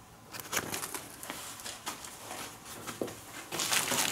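Paper and cardboard firework packs being handled and shifted in a cardboard box: light rustling with small taps and clicks, growing louder near the end.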